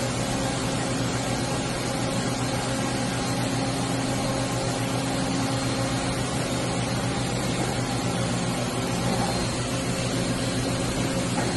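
Hartford PRW-5340 bridge-type CNC machining centre running: a steady mechanical hum with several held tones.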